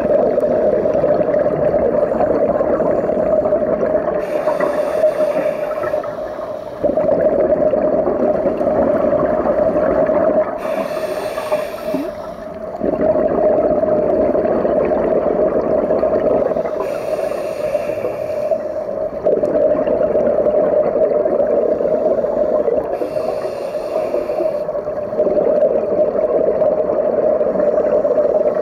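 Underwater sound of scuba breathing through a regulator, with bursts of exhaled bubbles about every six seconds over a steady rushing hum.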